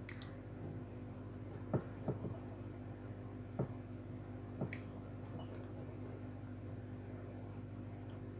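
Pencil scratching on paper in short strokes while small figures are sketched, with a few light knocks of the pencil on the sheet. A steady low hum runs underneath.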